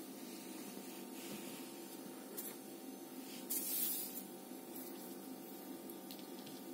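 Faint steady room hum with a few soft rustles, and one louder hissing rustle lasting under a second a little past halfway.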